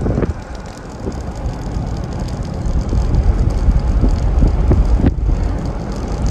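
A road vehicle driving along, with a steady low rumble of road and wind noise.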